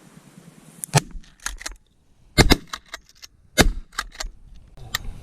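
Three loud shotgun shots about a second and a quarter apart as a hunter empties his shotgun at waterfowl, with fainter sharp cracks between and after them.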